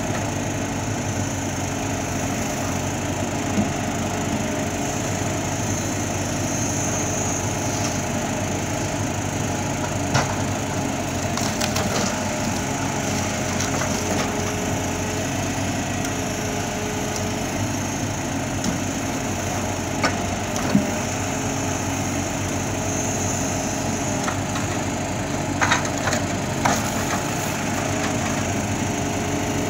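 Ponsse Wisent forwarder's diesel engine running steadily while its crane grapple loads pine logs, with scattered wooden knocks as logs strike the load.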